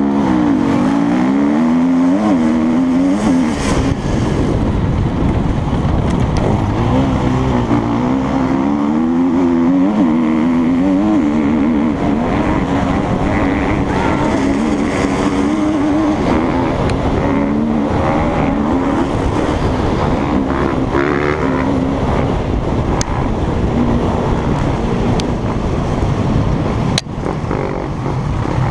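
KTM EXC-F 250 four-stroke single-cylinder enduro bike heard from on board, accelerating hard off a race start and riding at full throttle. The engine note climbs and drops back again and again as the rider revs through the gears.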